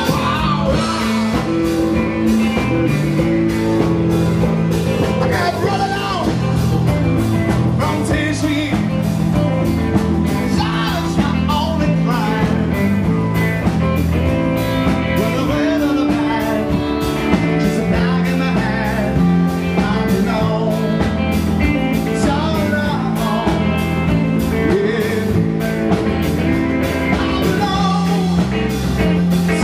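Live rock-and-roll band playing: a Telecaster-style electric guitar over drums with a steady beat.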